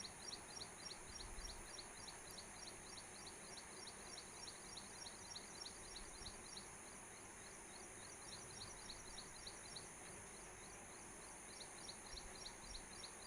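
Near silence: faint room tone with a rapid, even train of faint high-pitched chirps, several a second, over a steady high hiss.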